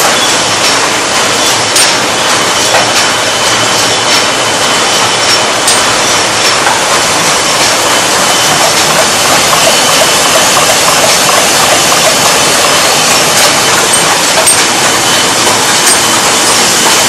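Paper cup making machinery running: a loud, steady mechanical din with a thin high whine and occasional faint clicks.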